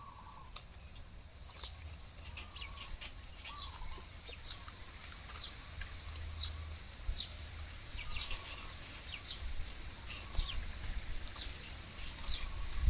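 Chickens feeding on watermelon: short, high, falling peeps repeated about once or twice a second, with soft low clucks and scattered pecking clicks.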